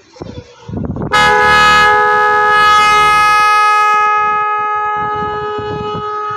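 A pair of 12V Type R disc horns, one high and one low, set off through a Magic18 digital horn relay by touching its trigger wire, sound one steady, loud blast together. It starts suddenly about a second in and holds, fading a little towards the end.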